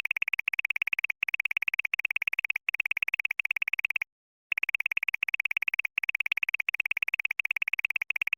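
A high-pitched electronic trilling sound effect, a fast-pulsing tone repeated in short runs, with a brief break about four seconds in.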